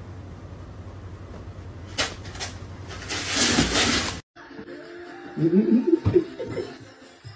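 A cat scrabbling in a plastic litter box: two sharp clicks, then about a second of loud scratchy scrabbling as it leaps about. After a sudden cut, a run of short wavering pitched sounds.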